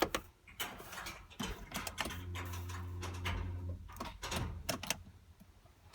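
A scattered series of sharp clicks and knocks of handling inside a car cabin, with a low steady hum for about a second and a half in the middle.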